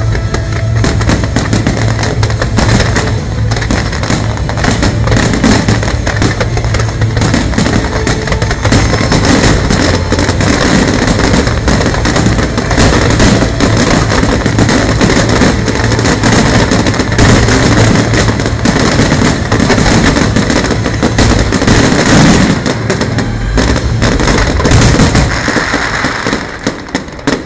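Aerial fireworks display: many shells bursting in a dense, continuous barrage of bangs and crackles, thinning to a few separate bangs near the end.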